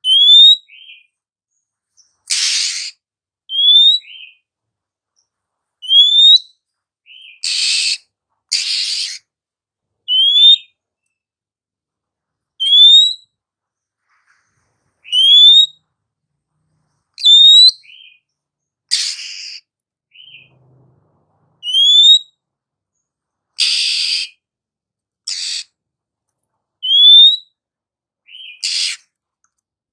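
Female Oriental magpie-robin calling: a clear, short rising whistle followed by a brief lower note, repeated about every two seconds, with harsh rasping calls in between. This is the female's call that keepers play to provoke male magpie-robins into singing.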